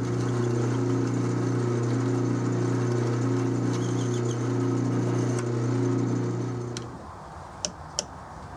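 12-inch Atlas metal lathe running with a steady hum while a 31/64-inch twist drill cuts through a slotted flexure coupling, an interrupted cut. The sound drops off about seven seconds in, followed by two sharp clicks.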